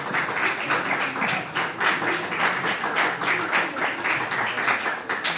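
Audience clapping in a quick, even run of claps, several a second, with faint voices underneath.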